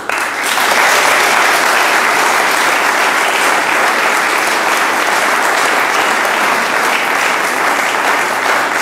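An audience applauding, a dense, steady clapping that starts abruptly and begins to die away near the end.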